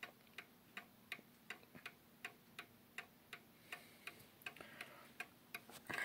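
Sessions beehive mantle clock from the late 1910s ticking steadily, its anchor escapement giving faint, even ticks a little under three a second.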